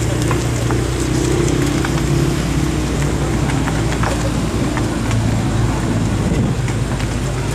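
BMW M6 Convertible's twin-turbo V8 idling steadily as the car rolls slowly by, with no revving.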